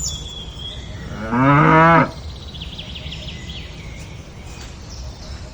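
A cow moos once, a short call of under a second, about a second and a half in. Birds chirp around it.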